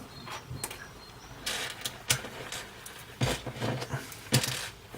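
Small salvaged electronic parts and hardware being handled on a hard surface: a scatter of light clicks, taps and rustles, with a couple of louder knocks in the second half.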